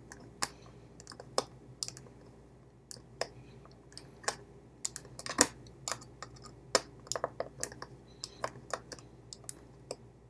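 A small screwdriver driving a screw back into a Logitech M305 wireless mouse's plastic housing, giving irregular sharp clicks and ticks.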